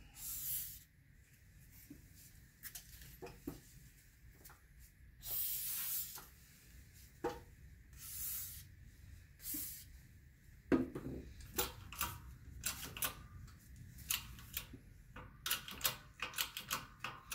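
Several short hisses from an aerosol can of WD-40 silicone spray, then a run of light clicks and ticks in the second half.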